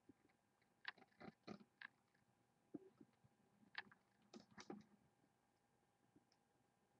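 Near silence broken by two short clusters of faint clicks, about a second in and again around four seconds in.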